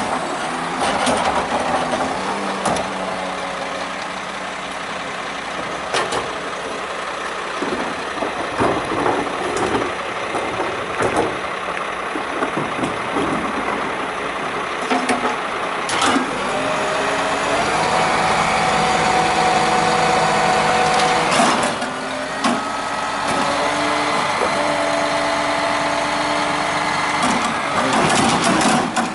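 Front-lift garbage truck's diesel engine running while its hydraulic forks lift and empty mini dumpsters, with repeated metallic bangs of the bins. A little past the middle the engine holds a higher steady pitch for a few seconds as the hydraulics work, then drops back.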